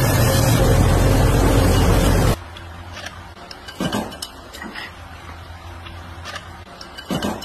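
Belt grinder running with a steel shock rod pressed against its abrasive belt: a loud, steady grinding that cuts off abruptly about two seconds in. After it come a few light clinks of machined steel rods knocking together in the hands.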